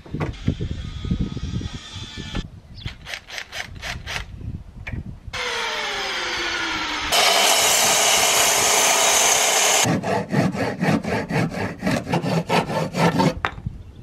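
Electric mitre saw winding up, then cutting loudly and steadily through a block of rough-sawn 3x2 timber for about three seconds while cutting half-lap joints. Before and after the cut, a hand tool works the wood in quick even strokes, about four a second.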